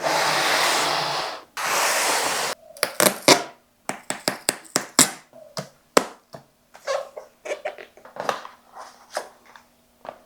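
Hands handling objects: two bursts of rustling noise about a second each, then a run of irregular clicks and taps.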